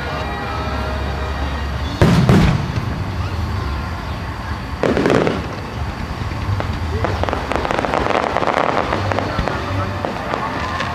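Starmine aerial firework shells bursting, with two heavy booms about three seconds apart. Near the end comes a spell of dense crackling from crackle stars.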